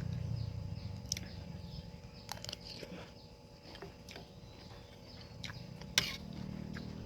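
A person eating noodle soup: chewing and mouth smacks with scattered small clicks, and one sharper click about six seconds in.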